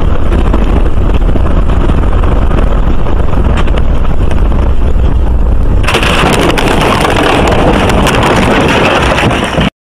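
Loud, distorted road and wind noise from a moving vehicle on a gravel road, heavy in the low rumble. About six seconds in it changes suddenly to a harsher, hissing noise, then cuts off abruptly near the end.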